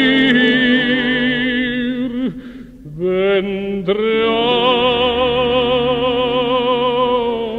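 Symphony orchestra playing a slow, sustained passage: a held chord with vibrato dies away about two seconds in, and after a short dip the orchestra comes back in with a new phrase.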